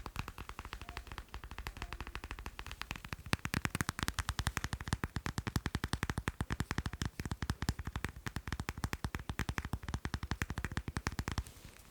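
Fast, continuous tapping on macarons, about ten taps a second. The taps grow louder about three seconds in and stop for a moment near the end.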